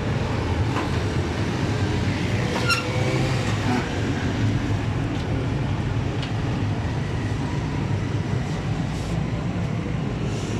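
Steady street traffic noise, a continuous low rumble of engines. A short high-pitched tone sounds about three seconds in.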